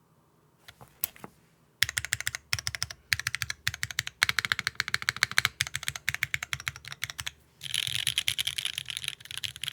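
Mechanical keyboard with Cherry MX Black linear switches and GMK keycaps being typed on. A few single taps about a second in, then fast steady typing, a brief pause, and a denser, quicker flurry of keystrokes near the end.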